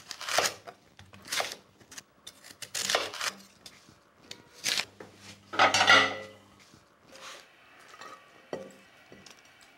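Chef's knife cutting through fennel bulb onto a cutting board, four strokes roughly a second apart. Then ceramic plates clink and clatter as one is pulled from a stack; this is the loudest sound, with a brief ringing, followed by a few faint clinks.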